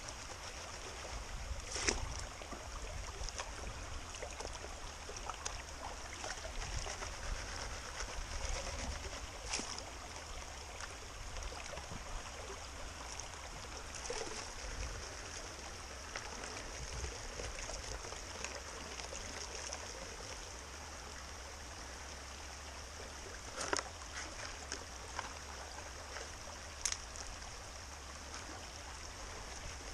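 Shallow rocky creek running steadily, with water swishing in a plastic gold pan as it is worked. A few sharp clicks stand out, the loudest about two seconds in and two more near the end.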